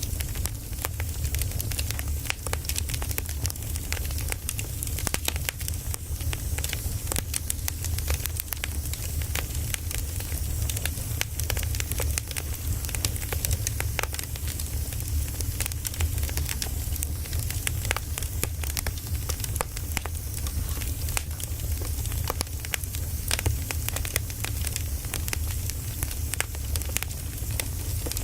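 Firewood burning, with dense irregular crackles and pops over a steady low rumble.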